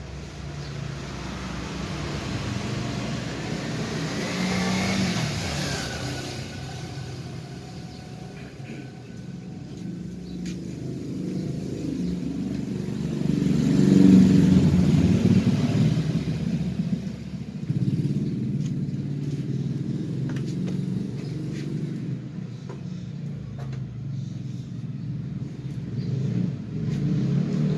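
Motor vehicles passing by: a low engine rumble that swells and fades several times, loudest about fourteen seconds in. A few light clicks and knocks come in the second half.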